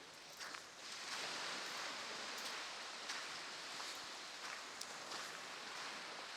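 Surf washing up on a beach: a steady rushing hiss that swells about a second in and holds, with a few faint ticks scattered through it.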